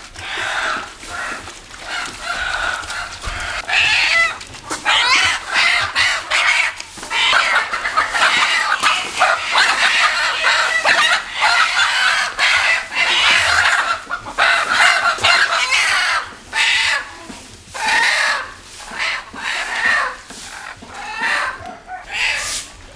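Chickens clucking and calling, a dense run of calls through the middle that thins out into separate calls near the end.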